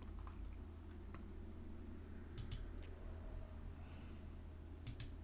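A few faint computer mouse clicks, scattered and twice in quick pairs, over a low steady hum.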